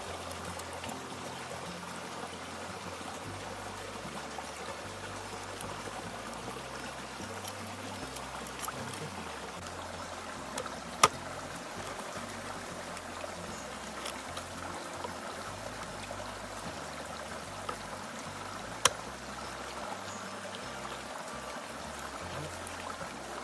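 Shallow forest stream running and trickling steadily over rocks, with three sharp knocks spread across it, the loudest about halfway through.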